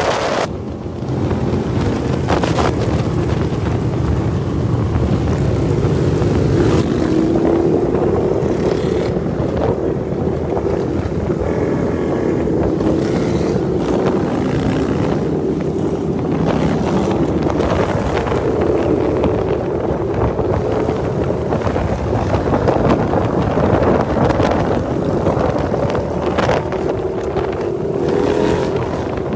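Motorcycle engines running at cruising speed in a large group ride, heard from a moving bike with heavy wind noise on the microphone. The engine note slides up and down with the throttle.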